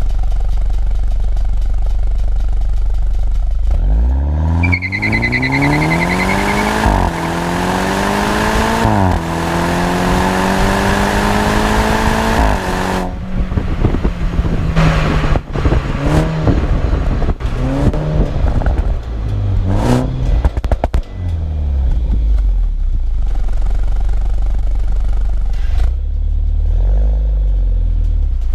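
BMW 125i's B48 turbocharged four-cylinder through a full M140i exhaust: it idles, then pulls away and accelerates hard with two upshifts. After that it lifts off, and the exhaust pops and crackles on the overrun with quick rev blips on the downshifts. It settles back to idle, with one short rev near the end.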